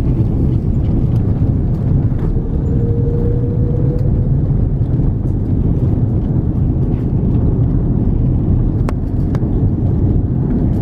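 Cabin noise of an Airbus A330-300 rolling along the runway just after touchdown: a loud, steady low rumble of engines and wheels. A faint rising whine sounds between about two and four seconds in, and there are two faint clicks near the end.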